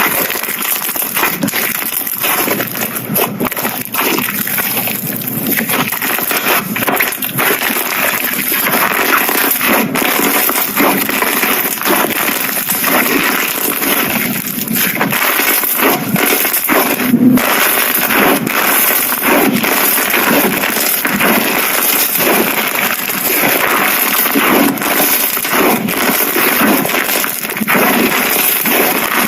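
Slime being squeezed and worked by hand, with a dense, continuous crackling and popping of small clicks.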